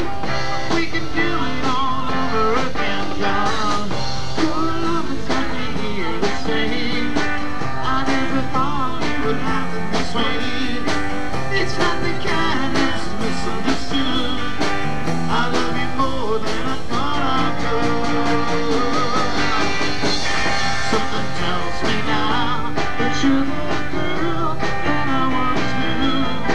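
Live rock band playing an instrumental passage: electric guitar over a drum kit with a steady beat.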